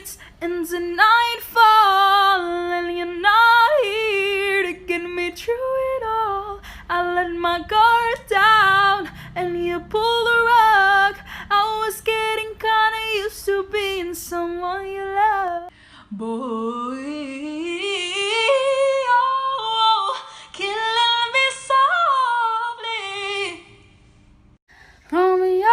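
A woman singing solo with no instruments heard, her voice wavering in a wide vibrato. About two-thirds through she slides up in one long rising phrase, and she pauses briefly near the end.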